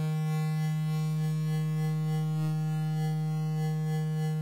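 Synthesized oscilloscope-music tone from the Unilateral Phase Detractor, a Raspberry Pi running Pure Data: one steady low pitch with many overtones, held unchanged. It is the stereo signal that draws a notched, cog-like circle on the oscilloscope.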